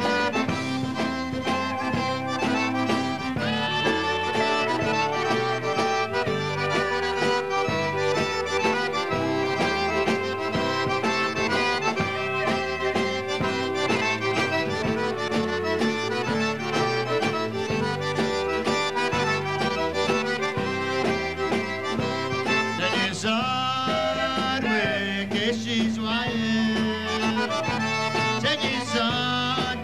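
Cajun accordion playing an instrumental break with long held notes over the band's steady backing. About three-quarters of the way through, a man starts singing over it.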